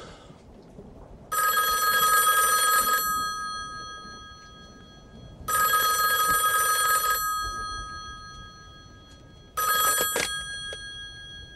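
Touch-tone desk telephone's bell ringing: two rings of about a second and a half each, about two and a half seconds apart. A third ring is cut short after about half a second as the handset is lifted from the cradle with a brief clatter.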